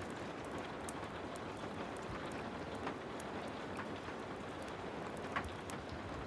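Heavy rain as a steady hiss, mixed with a crackling wood fire: frequent small sharp pops and clicks, the loudest pop about five and a half seconds in.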